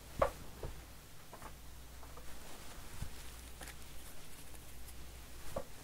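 Trading cards being handled and flipped through by hand: scattered soft clicks and slides of card against card, the sharpest about a quarter second in, over a low steady hum.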